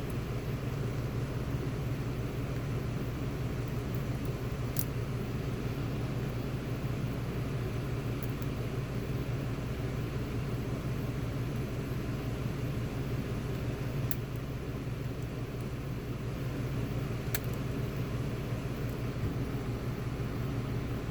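Steady low hum of a running machine, such as a fan, with four faint, sharp clicks spread through it from lock picks working inside a Fab Dynamic pin-and-slider lock.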